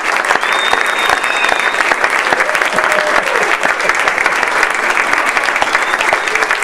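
Audience applauding steadily, with a few voices calling out and a brief high whistle near the start.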